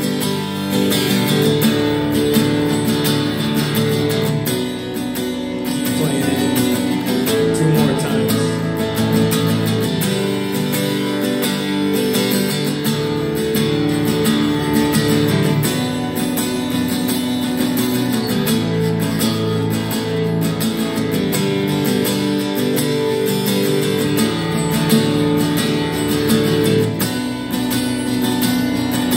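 Acoustic guitar with a capo strummed in a steady rhythm, with keyboard chords played along.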